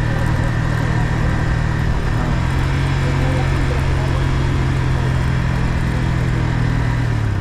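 Stock Yamaha MT-15's 155 cc single-cylinder four-stroke engine running at a steady pace under way, heard onboard with wind and road rush. The note rises a little about two seconds in, holds, then drops back near the end as the throttle eases.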